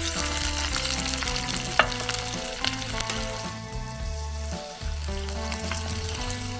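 Food sizzling in a hot oiled pan as it is stirred, with a few sharp clicks of the utensil against the pan; the sizzle is loudest in the first half. Background music with a steady bass line plays throughout.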